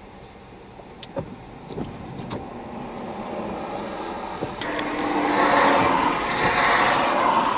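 A tractor-trailer passing on a wet highway, its rumble growing louder as it comes by. A few seconds in, the sound changes abruptly to a much louder rushing noise that swells and eases several times.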